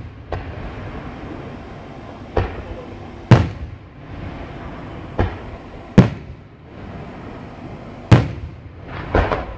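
Aerial firework shells bursting overhead: about six sharp bangs one to two seconds apart, each with a short echoing tail, and a quick cluster of smaller pops near the end.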